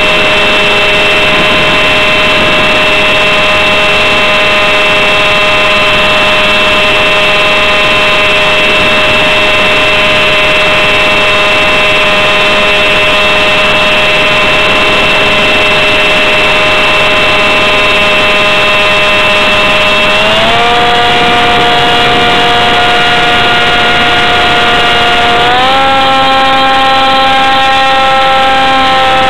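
Onboard sound of a small RC model jet's motor and propeller running in flight: a loud, steady whine over rushing air. The pitch steps up twice, about twenty and twenty-five seconds in, as the motor speeds up.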